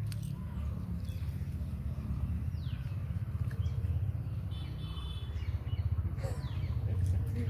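A low, uneven rumble of wind on the microphone, with a few faint bird chirps over it.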